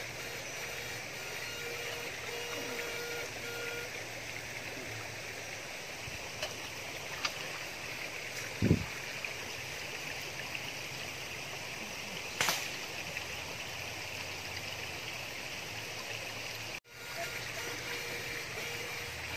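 A stream or river running steadily, a constant rush of water, with one sharp thump about nine seconds in and a few faint clicks.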